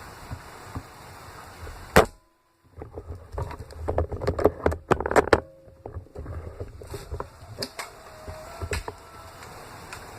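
A loud single sharp crack about two seconds in, like an airsoft gun firing. It is followed by a couple of seconds of rustling and scuffing with many small clicks, the sound of a player moving with gear, and scattered clicks later.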